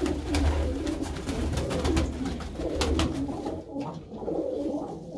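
A flock of domestic crested pigeons cooing in an enclosed loft, many overlapping low wavering coos, with a few sharp clicks mixed in.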